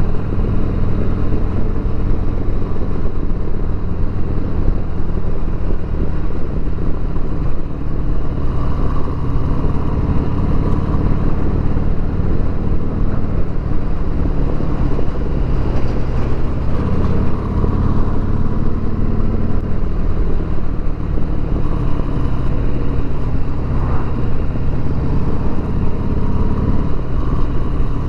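2020 Harley-Davidson Sport Glide's Milwaukee-Eight 107 V-twin engine running steadily under way, with road and wind noise mixed in.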